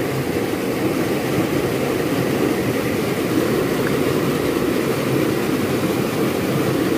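Steady rushing of stream water flowing over rocks, an even noise with no breaks.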